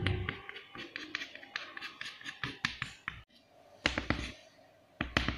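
Chalk on a blackboard in quick short strokes: a rapid run of small taps and scratches, then a pause and a few louder knocks near the end.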